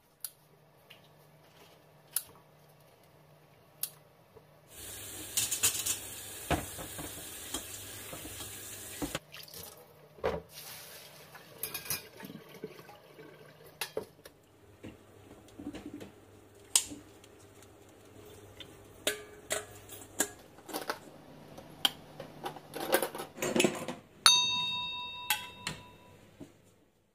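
Tap water runs into a kitchen sink for a few seconds while grapes are rinsed in a stainless steel colander, with many clinks and knocks of metal bowls and utensils. A short ringing tone sounds near the end.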